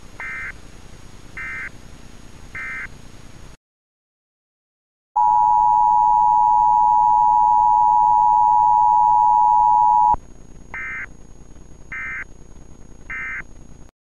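Emergency Alert System tones: three short data bursts about a second apart, a brief silence, then the steady two-tone attention signal, much louder, for about five seconds, followed by three more data bursts.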